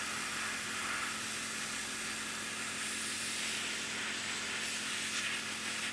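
Airbrush spraying weathering paint: a steady hiss of air.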